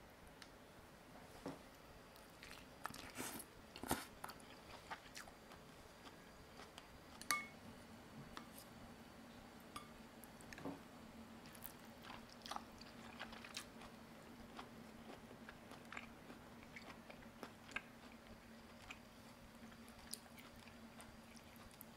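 Faint scattered clicks and taps of a wooden spoon and wooden chopsticks against a ceramic bowl as a soft cabbage roll is lifted from broth, with small wet squishes. About seven seconds in, one tap rings briefly like a utensil striking the bowl's rim.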